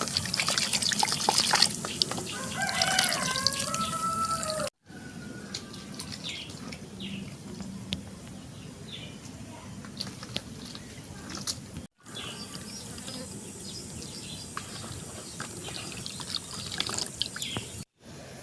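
Water splashing and dripping as dried wild mushrooms are washed by hand in a basin, with a rooster crowing in the first few seconds. The later part is quieter: scattered drips and small bird chirps.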